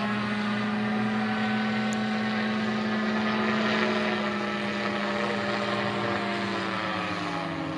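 Radio-controlled model airplane's engine and propeller running steadily overhead, a constant pitched drone that dips slightly in pitch near the end.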